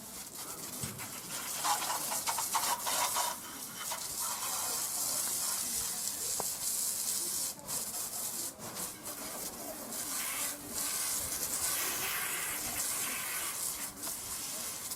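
Steady high hiss that swells and fades.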